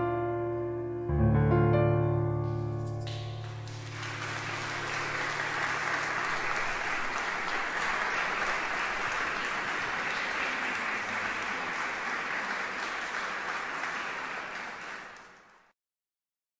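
Final chords of a song on an electric piano ring out, with a last low chord struck about a second in and dying away. Audience applause then starts about four seconds in, holds steady, and fades out shortly before the end.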